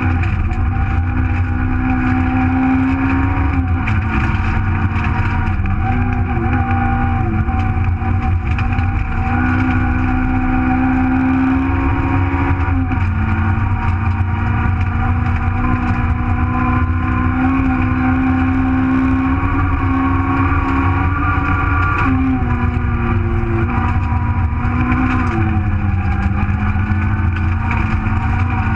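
Super1000 Nissan Micra rally car's 1.4-litre engine heard from inside the cabin, running hard at speed. Its pitch climbs and drops several times with throttle and gear changes.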